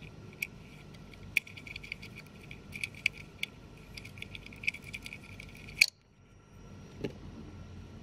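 Light, irregular metallic ticks and scraping of a thin metal test probe working in the pin cavities of a plastic wiring connector, ending in a sharper click just before six seconds, after which the sound drops away; one more click follows about a second later.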